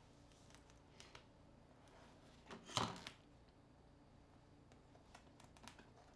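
Faint handling sounds: small clicks and taps of a disassembled smartphone and its parts on a tabletop, with one louder brief rustle about three seconds in. Otherwise near silence.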